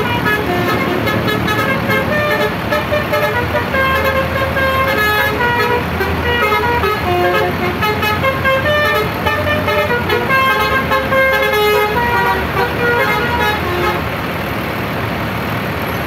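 Indonesian tour bus's 'basuri' multi-tone telolet air horn playing a fast melody of short horn notes without a break. Under it runs the low sound of the bus's engine as the bus moves slowly.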